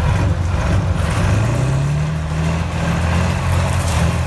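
Kirovets K701 tractor's YaMZ diesel engine running under load, its pitch rising as it revs up about a second in and then holding steady.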